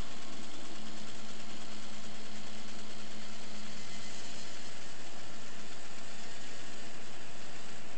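Model Power 4-4-0 model locomotive's small electric motor and gear drive running steadily at low yard speed, its drivers spinning free with no load, heard as a steady low hum over a hiss.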